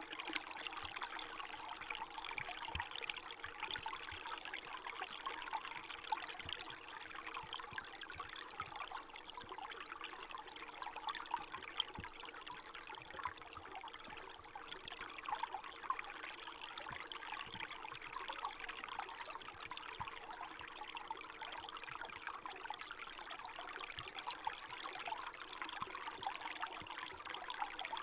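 Small forest stream trickling and splashing steadily, an even bright babble without deep rumble.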